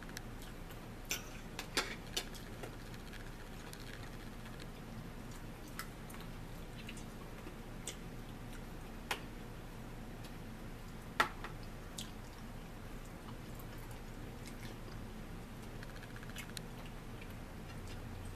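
Cutlery and eating sounds during a meal: scattered light clicks and taps of forks on plates and a plastic food tray, the sharpest about eleven seconds in, over a steady low hum.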